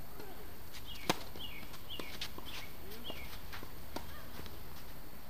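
Tennis rally on a hard court: one sharp racket-on-ball strike about a second in, with fainter ball hits around it. A bird chirps in short high notes, about twice a second, over steady outdoor background noise.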